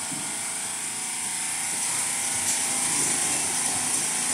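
4D HIFU handpiece running as it fires, its motor driving the ultrasound transducer along the cartridge with a steady mechanical whirring buzz.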